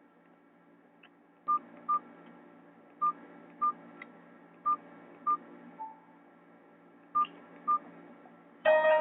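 Nokia 216 keypad beeps: eight short beeps at one pitch, in four quick pairs a second or more apart. Just before the end a ringtone starts playing loudly.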